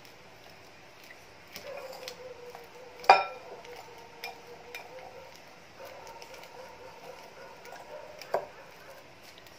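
Fork mashing sliced ripe banana in a glass bowl: light scattered clinks of the metal fork against the glass, with a sharp ringing clink about three seconds in and another near the end.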